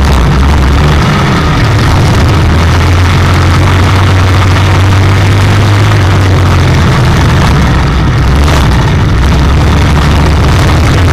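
IMCA stock car's V8 engine running hard under racing load, heard loud from inside the cockpit. Its pitch shifts about a second in and again around six to seven seconds as the throttle changes through the turn.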